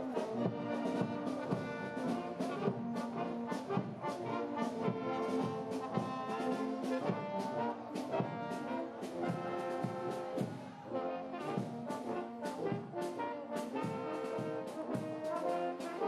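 Marching brass band playing a march as it passes, with trombones, trumpets, tubas and saxophones over a steady beat.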